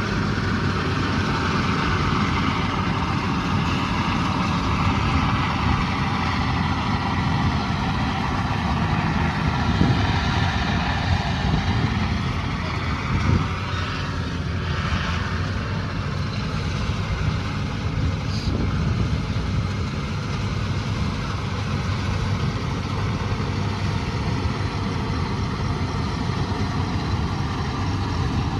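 Combine harvester's diesel engine running steadily, its pitch drifting slightly up and down.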